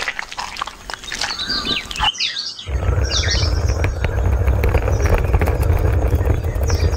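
Birds chirping in short calls, over a steady low rumble that is faint for the first couple of seconds and returns about two and a half seconds in.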